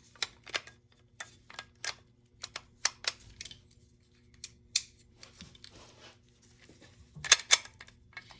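Small parts of an airsoft rifle being worked loose and handled: an irregular series of sharp clicks and taps, with a quick run of louder clacks about seven seconds in.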